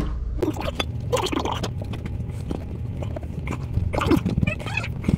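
Irregular clicks, taps and rustling of hands working close by, threading the nut of a braided stainless steel water supply line onto a shutoff valve and handling the hose. A low hum stops about half a second in.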